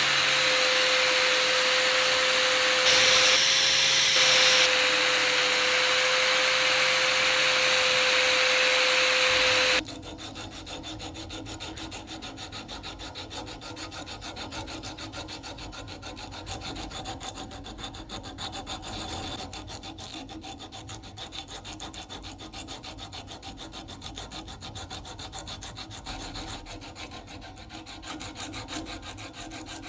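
A power tool runs with a steady whine and cuts off suddenly about ten seconds in. Quieter, repeated hand rubbing strokes follow, like abrading work on the rusty knife.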